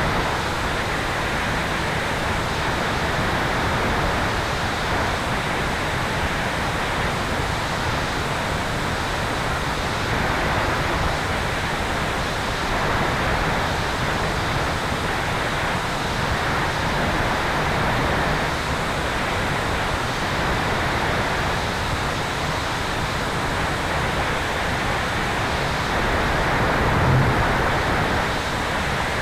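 Steady rushing airflow noise over a tail-mounted camera on a Sonex Xenos electric motor glider in flight, with a brief low bump near the end.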